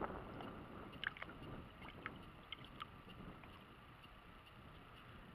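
Water lapping against a small fishing boat's hull, with light wind on the microphone. A few small sharp clicks and taps come in the first three seconds, then only the steady water and wind noise remain.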